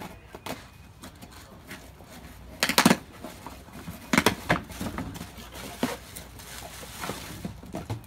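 Items being unpacked by hand from a cardboard box: scattered knocks, rustles and clinks, loudest about three seconds in and again about four seconds in.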